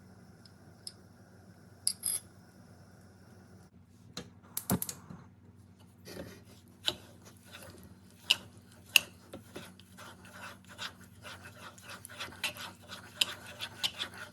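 Kitchen utensil clinking and scraping against cookware: a few separate clicks, then from about six seconds a busy run of clinks and scraping.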